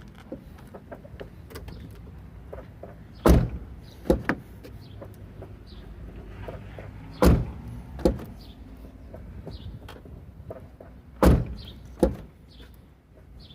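Volkswagen Gol G5 car door opened and shut three times, each shut a heavy thump followed by one or two lighter latch clicks. The door's hinge and check parts are freshly greased and no creak is heard.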